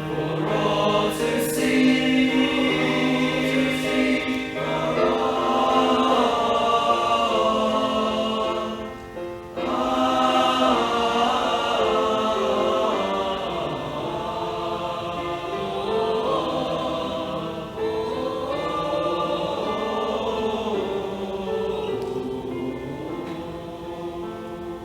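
Choir singing in harmony, with voices holding long notes and a brief break between phrases about nine seconds in.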